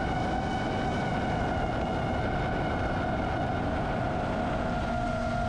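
Steady buzz of a five-inch FPV quadcopter (iFlight Nazgul 5) cruising on its motors and propellers, holding one pitch, over a constant wind rumble.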